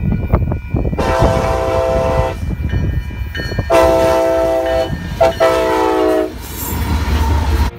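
Nathan K5LA five-chime air horn on a Union Pacific SD70ACE-T4 diesel locomotive sounding a series of blasts, a long one, then a longer one, then a short and a long, as the train passes close by. The low rumble of the locomotive's engine and the train's wheels on the rails runs underneath, and it is left alone near the end once the horn stops.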